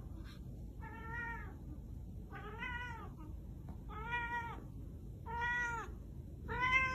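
A cat meowing again and again while carrying a toy ball in its mouth: five drawn-out calls, each rising and then falling in pitch, about one every second and a half, the last the loudest.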